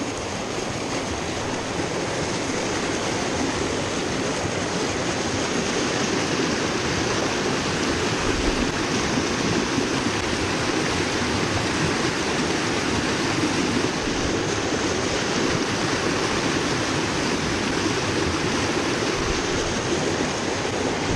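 A rocky mountain stream rushing steadily over boulders through whitewater riffles.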